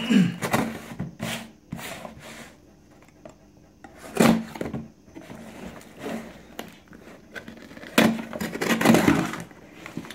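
A knife slitting the packing tape on a cardboard shipping box, with scraping and rustling of the cardboard as it is handled and the flaps are pulled open. There are several short harsh bursts, the longest one near the end.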